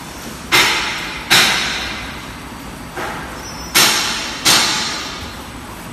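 Non-woven hot needle punching machine running with a steady low hum, broken five times by a sudden loud hiss of compressed air venting from its pneumatic valves, each fading away over about a second.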